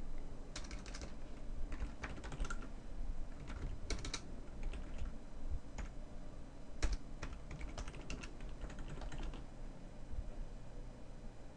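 Typing on a computer keyboard: short, irregular runs of keystrokes that stop about nine seconds in.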